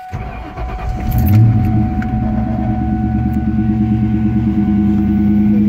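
2004 Ford Mustang GT's 4.6-litre V8 cranking on the starter for about a second, catching with a brief rev flare, then settling into a steady cold-start idle, heard from inside the cabin.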